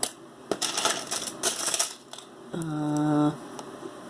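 Costume jewelry clicking and rustling as it is handled, with several sharp clicks in the first two seconds. About two and a half seconds in, a woman gives a short hummed "mm".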